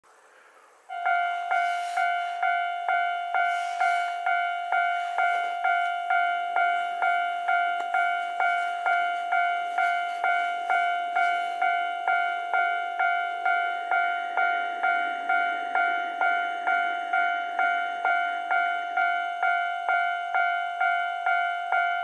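Japanese railway level-crossing warning bell starts about a second in and rings a repeating electronic ding about twice a second, the signal that a train is approaching.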